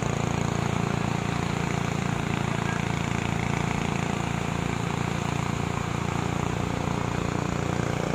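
Heavy surf breaking on a sandy beach: a loud, steady, deep rushing of waves with no letup.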